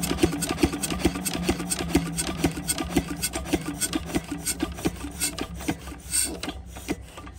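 12 hp single-cylinder diesel water-pump engine running just after starting, with a regular beat of firing strokes at about five or six a second. After about four seconds the beat slows and gets quieter, as the engine runs down.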